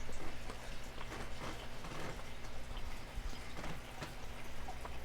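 A person chewing food close to the microphone, with soft irregular wet clicks and smacks of the mouth.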